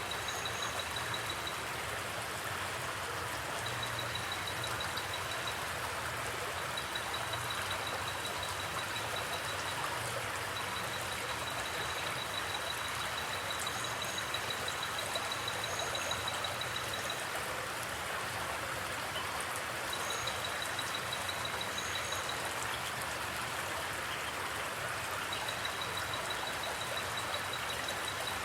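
Forest creek water flowing, a steady rushing with no change in level.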